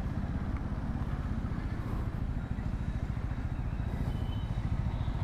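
Motorcycle engine running steadily while riding, a low fast-pulsing rumble with no change in pace.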